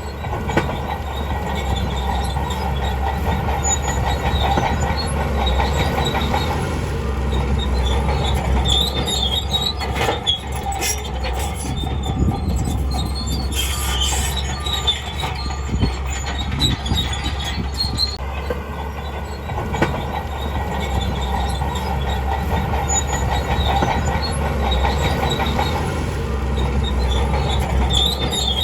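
Crawler bulldozer running steadily, its engine humming low under the squeal and clank of its steel tracks, with scattered sharp clicks.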